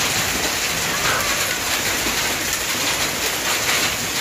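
Heavy rain mixed with hail pouring down in a steady, dense hiss, with faint scattered taps of stones striking.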